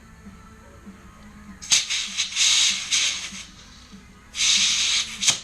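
Compressed air hissing in short bursts into a stiff CST off-road scooter tire to push its bead onto the rim. There is a choppy burst about two seconds in that lasts over a second, and another about a second long near the end.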